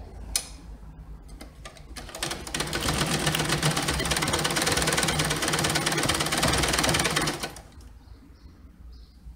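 Liberty domestic sewing machine stitching a seam to join two pieces of fabric: a single click, then from about two seconds in a fast, even rattle of the needle running for about five seconds before it stops abruptly.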